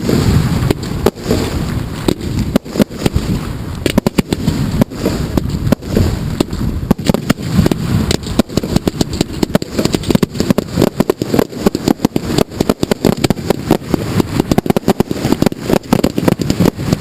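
A dense barrage of fireworks, heard close by at the firing site: shells launching and bursting in quick succession, several sharp bangs a second, with no pause.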